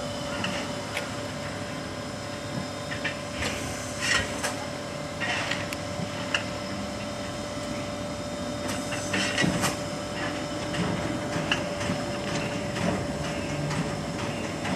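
D51 200 steam locomotive: a steady hum under scattered metallic clanks and a few short bursts of hiss, the strongest about four and nine seconds in.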